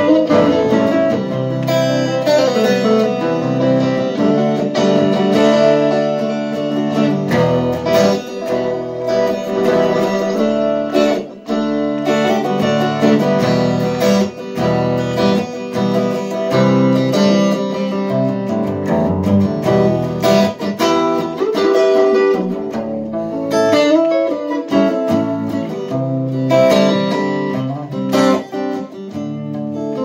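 Solid-body electric guitar played through a PA speaker: a continuous run of picked notes and chords, with one brief dip about eleven seconds in.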